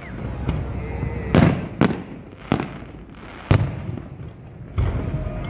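Aerial fireworks shells bursting overhead: five loud, sharp bangs at uneven intervals, each trailing off in an echo.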